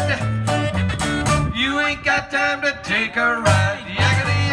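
A live rock-and-roll band playing, with electric guitar, a bass line and drums.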